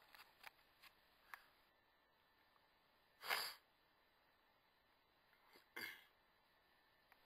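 A few faint clicks, then a person coughing twice, the first cough louder, about two and a half seconds apart.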